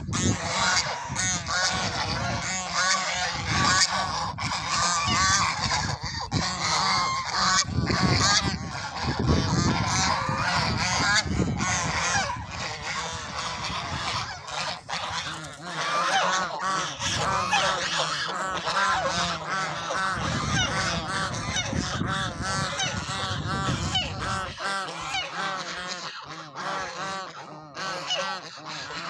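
A flock of domestic geese honking nonstop, many short calls overlapping from several birds at once.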